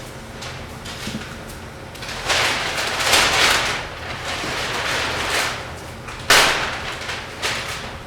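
100,000-year-old ice popping and cracking: a run of irregular hissing, crackling bursts, the loudest stretch from about two to four seconds in, and one sharp crack a little after six seconds.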